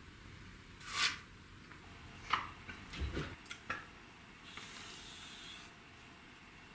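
Drinking sounds from 3D-printed plastic cups with built-in straws. There is a short breathy rush about a second in, then a few sharp clicks and a low thump as the plastic cups are handled and changed. Near the end comes a steady breathy hiss of about a second while juice is sucked up a long helical straw.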